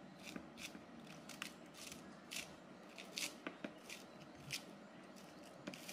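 A small knife slicing a spring onion into thin rings, cut against the thumb in the hand: faint, crisp cuts about two or three a second, irregularly spaced.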